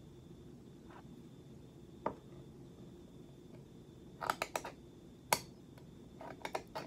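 Pull-tab lid of a tuna can being worked open: a couple of isolated clicks, then clusters of sharp metal clicks and cracks about four seconds in and again near the end, with one loud single snap between. A steady low hum sits underneath.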